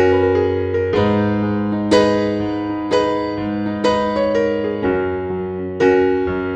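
Soft, slow piano music: a note or chord struck about once a second and left to ring and fade, over held chords.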